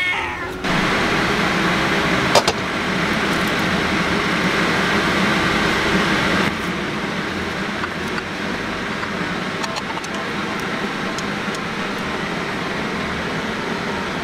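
A cat's meow ends about half a second in. A steady rushing kitchen noise follows and runs on, with one sharp click about two and a half seconds in.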